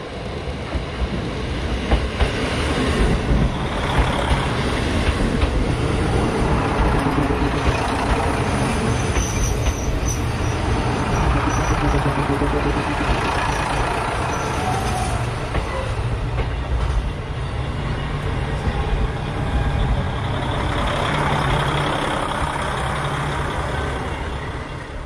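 KiHa 40 and KiHa 54 diesel railcars pulling slowly into the station close by: diesel engines running and wheels rolling over the rails in a loud, steady rumble. A brief high squeal comes about ten seconds in.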